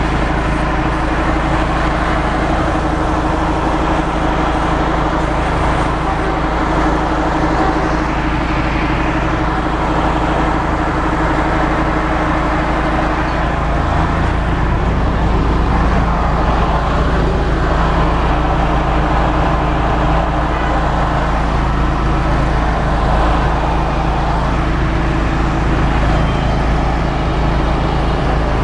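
A 5 kW gasoline generator is running under load, powering an electric piston air compressor, which runs loud and steady alongside it. About halfway through, the steady hum shifts slightly in pitch.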